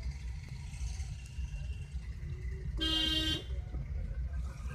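Low, steady rumble of a car driving slowly, heard from inside the cabin, with one short vehicle-horn blast of about half a second midway through.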